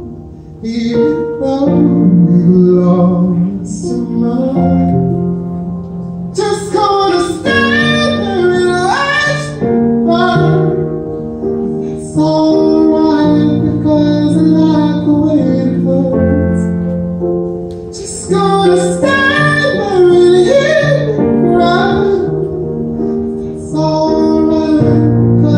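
A man singing through an amplified handheld microphone over instrumental backing music, his voice in long held notes and runs, with brief breaths between phrases.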